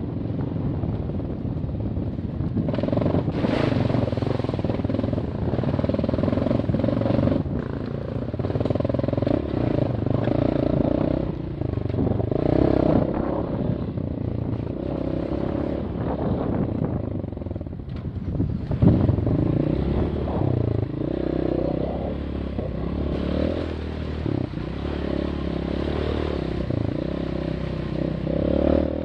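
Off-road trail motorcycle engine running, its pitch rising and falling repeatedly as the throttle is opened and closed.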